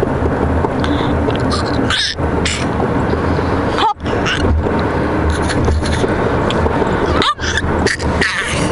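Steady low road rumble inside a moving car's cabin, cutting out briefly twice.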